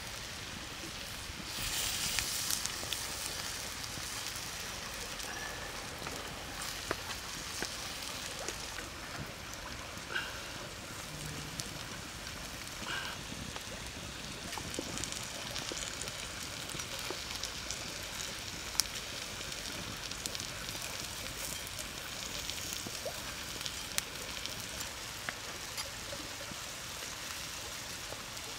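Prawns sizzling on a hot stone slab over a wood fire, with the fire crackling: a steady hiss dotted with sharp pops, louder for a second or so about two seconds in.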